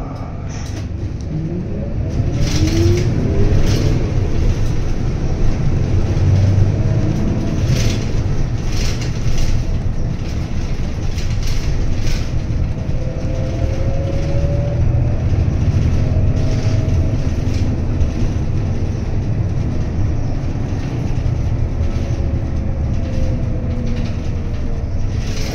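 Toei city bus heard from inside the cabin: a low engine and road rumble with a whine that rises in pitch as the bus pulls away about two seconds in, then steady running with scattered interior rattles, the whine falling in pitch near the end as it slows.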